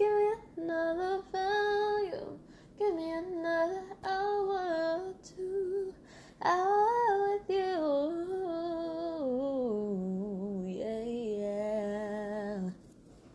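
A female voice singing solo, unaccompanied, in short phrases with held notes, ending in a lower, long held note that stops shortly before the end.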